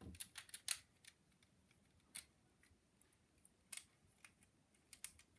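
Small plastic LEGO pieces clicking faintly as a chain of LEGO bits is fitted back onto a chainsaw blade: a quick run of clicks in the first second, then a few single clicks.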